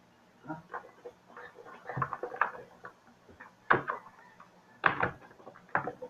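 Hard plastic parts of a makeup case being handled: a few sharp clicks and knocks, the strongest about two thirds of the way in.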